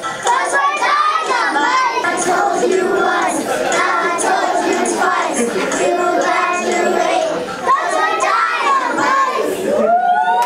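A group of kindergarten children singing a song together, many young voices at once.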